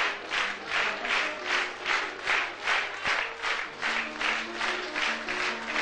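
A theatre audience clapping in unison in a steady rhythm, nearly three claps a second, with music playing faintly underneath: rhythmic applause for the actors at the end of a performance.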